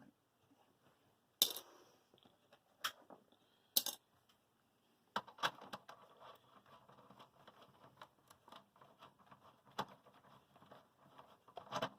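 Small metal hardware and a socket clinking as they are handled: three sharp clicks in the first four seconds, then about five seconds in a stretch of lighter, irregular clicking and rattling.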